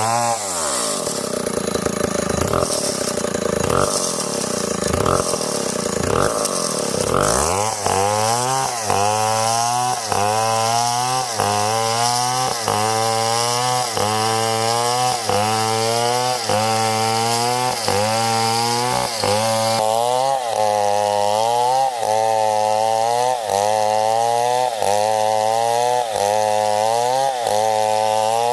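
Stihl 070 two-stroke chainsaw running under load in a cut. Its engine pitch dips and recovers over and over, about once a second, for most of the stretch.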